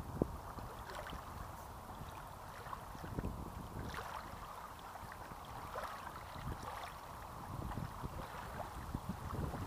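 Small waves lapping on a sandy beach: a steady wash of water with uneven low rumbles of wind on the microphone.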